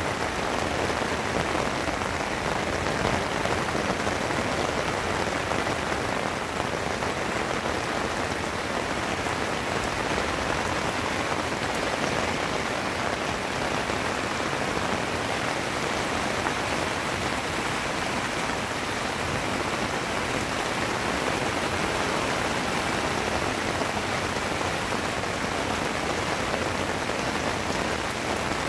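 Heavy rain falling steadily on fig trees, an even, unbroken hiss.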